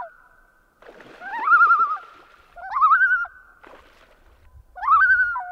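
Common loons giving tremolo calls: three calls, each a quick rising note that breaks into a quavering, laugh-like wobble. This is the loon's alarm call, from birds disturbed near their chick.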